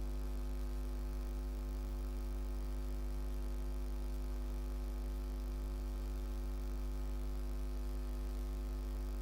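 Steady electrical mains hum with a stack of even overtones.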